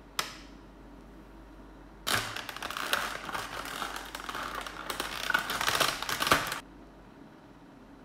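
A single sharp click, then from about two seconds in a dense run of crackling and clicking that stops sharply near six and a half seconds: a clear plastic blister tray being handled and flexed.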